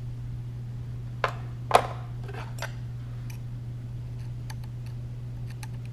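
A milling machine runs with a steady hum while a 1¼-inch roughing end mill plunges into a bore. Two sharp clicks come between one and two seconds in, then light irregular ticks as the cutter bites.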